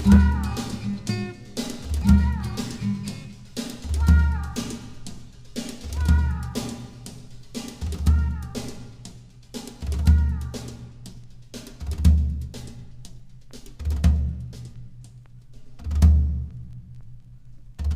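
Instrumental jazz/world music with a slow beat: a deep drum hit about every two seconds, lighter percussion clicking between hits, and short falling pitched notes. Near the end the lighter sounds drop away and mostly the deep drum hits remain.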